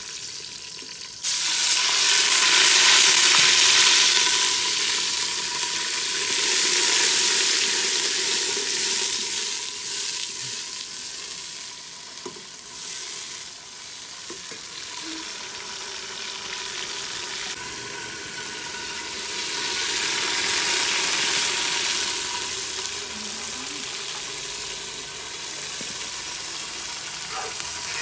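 Hissing and sizzling from an aluminium pot of water and vegetables heating on a clay stove, jumping up about a second in and then swelling louder and softer over several seconds.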